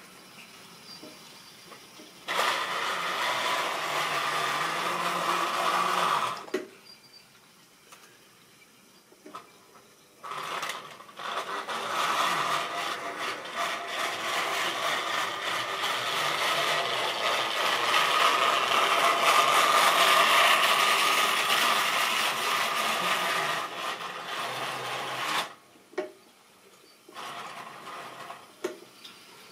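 Model railway train running: the locomotive's small electric motor whirring with the rattle of wagon wheels on the track. It runs twice, briefly from about two seconds in, then for about fifteen seconds from about ten seconds in.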